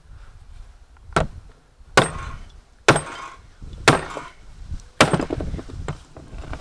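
Five sharp hammer blows about a second apart on a coil component salvaged from a circuit board, each a hard crack with a short ring, as the part is broken open to get at its copper winding.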